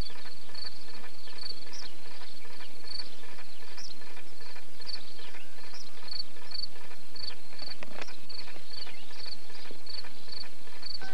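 Cricket chirping in a steady, regular rhythm, about two short high chirps a second, with a few brief rising calls over it.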